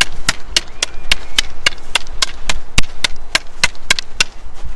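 Rattan sticks clacking together in a Filipino double-stick (Kali) partner drill: a steady run of sharp wooden strikes, about three to four a second, that stops shortly before the end.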